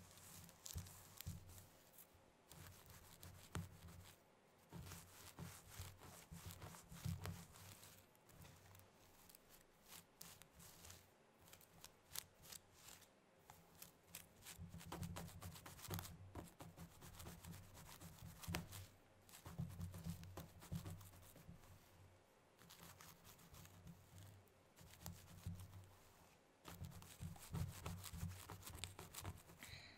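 Very long stiletto nails scratching and raking through hair on a scalp, close to the microphone: a dense, scratchy crackle that comes in busier spells with quieter stretches between.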